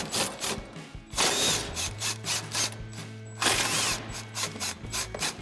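Cordless impact wrench with a 15 mm socket on an extension, hammering in several short bursts as it backs out a truck's bumper support bolt.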